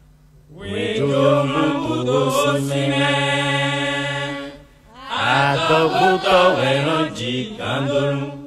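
Church choir singing a hymn as a chant: one long phrase on steady held notes, then, after a short break, a fuller phrase of many voices together.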